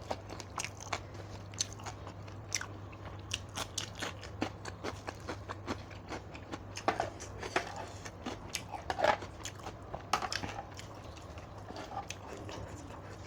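A person eating: irregular crunchy bites and chewing, with many short crackling clicks, a little louder from about seven seconds in.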